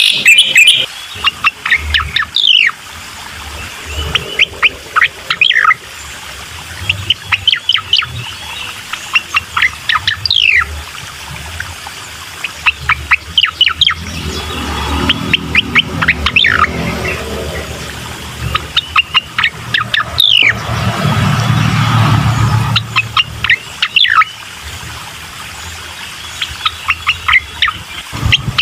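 Recorded cucak koreng song played as a lure track to set off a caged bird: bursts of rapid sharp chirps and steep downward-sweeping whistles, repeated every few seconds, over a low background rumble.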